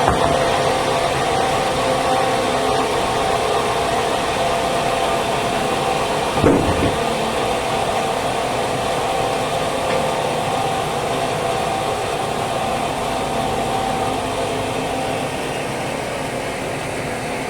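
Band sawmill machinery running steadily, with a continuous hum and a single knock about six and a half seconds in. It becomes slightly quieter near the end.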